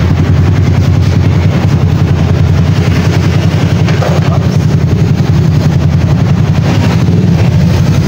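Honda Wave 125 motorcycle's single-cylinder four-stroke engine running steadily without revving, heard through an aftermarket dual-tip muffler as a loud, deep, evenly pulsing exhaust note.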